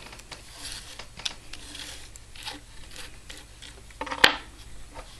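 Small handling clicks and rustles of a disassembled lock cylinder and its pins being worked on a cardboard tray, light and irregular, with one sharp click about four seconds in.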